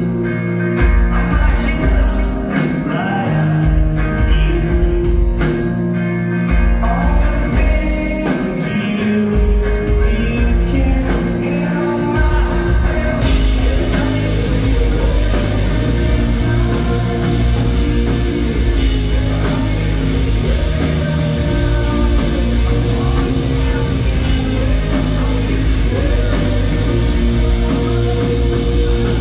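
Live rock band playing through a concert PA, heard from the audience: electric guitars, bass, drums and keyboards with a sung lead vocal. About 13 seconds in, the full band comes in denser and fuller.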